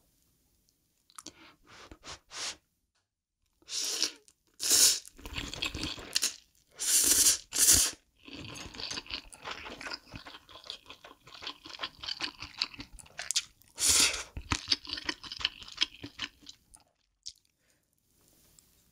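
Close-miked mukbang eating: a few loud crunching bites, followed by a long run of rapid, crackly chewing that stops near the end.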